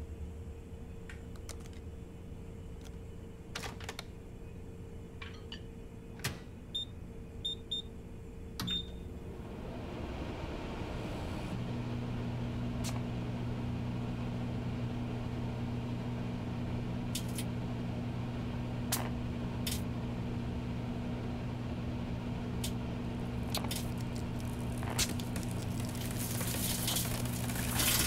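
Microwave oven: four short keypad beeps, then about ten seconds in it starts up and settles into a steady low hum with its fan running. Scattered sharp clicks and crackles sound over the hum, busier near the end.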